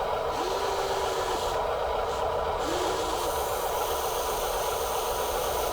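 Small electric motors and gears of a radio-controlled toy construction truck whirring steadily, with a faint tone that wavers as the motor speed changes.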